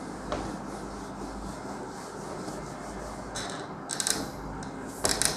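Cloth rubbing across a whiteboard, wiping off marker writing, with a few short, louder scrapes near the end.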